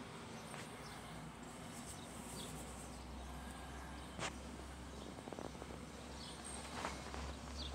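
Faint background ambience with a few short high chirps, a sharp click about four seconds in and a small run of light ticks soon after. A low hum comes in about two seconds in and stays.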